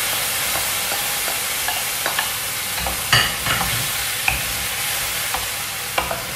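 Diced tomato and onion sizzling in a hot non-stick wok, stirred with a wooden spoon that scrapes and knocks against the pan. A louder knock comes about halfway through.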